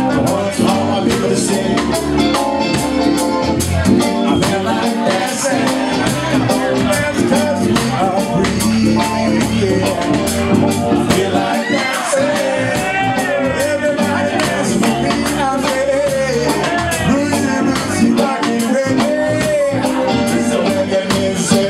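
Live band playing, with electric guitar, bass guitar and drum kit, and several voices singing together into microphones.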